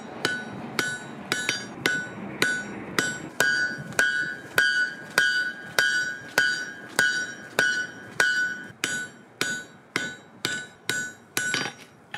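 Hand hammer striking a hot wrought iron bar over the anvil horn in a steady rhythm, about two blows a second, each blow ringing off the anvil. The smith is drawing round bar out into flat stock.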